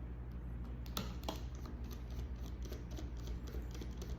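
Small clicks and ticks of a precision screwdriver working the tiny screws of a laptop's panel, two slightly sharper clicks about a second in, over a steady low hum.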